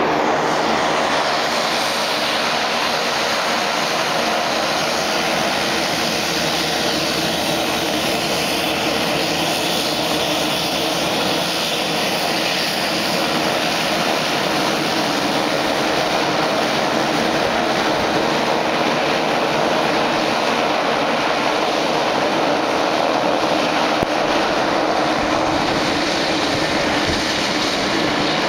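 Steady noise of aircraft engines at taxi power: a Boeing 737's jet engines running at idle as it taxis to the gate, with a twin-turboprop business plane taxiing past about halfway through.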